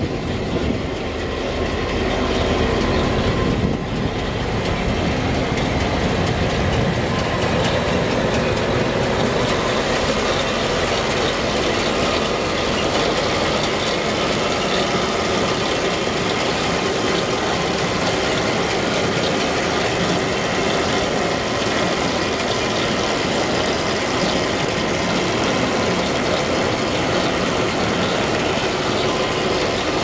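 Tractor engine running with a John Deere 569 round baler driven off its PTO, a steady mechanical clatter of the baler's drive turning.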